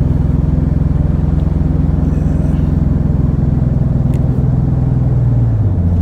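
1999 Ford Ranger's 4.0-litre V6 running through glass-pack exhaust with no muffler, heard from inside the cab while driving, misfiring on one or two cylinders with a lot of vibration. The engine note drops about five and a half seconds in as the revs fall.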